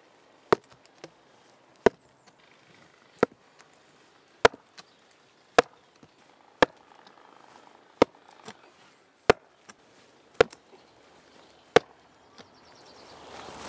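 A heavy stone pounding down on the top of a wooden fence post, driving it into the ground: about ten sharp knocks a little over a second apart, with a few lighter taps between them.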